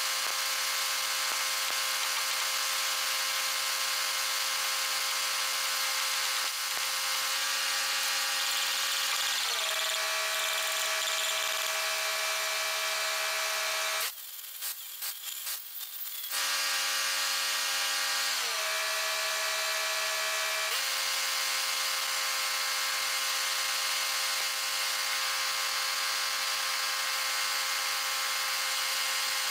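Arc welding on a skidder grapple's steel eyelet: a steady crackling hiss with a hum underneath. It breaks off for about two seconds about halfway, leaving a few light clicks, then starts again.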